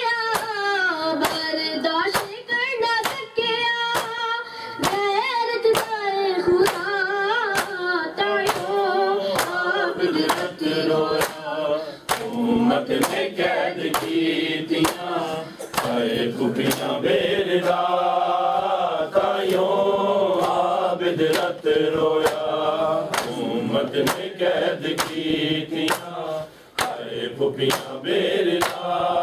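A group of men chanting a mournful noha in unison, led by a reciter, over a steady rhythm of open-handed slaps on bare chests (matam).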